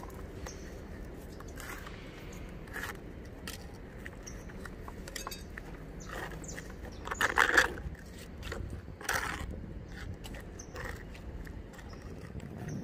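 Spatula scraping and spreading thick white filler paste across a fibreglass trench cover: a run of short scrapes, the loudest a little past the middle, over a steady low background noise.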